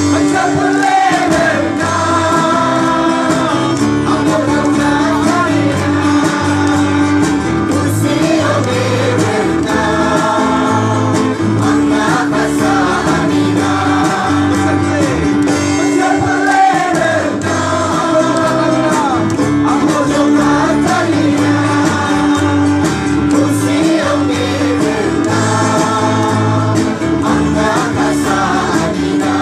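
A group of singers performing a song together live, accompanied by acoustic guitar and drums, amplified through PA speakers.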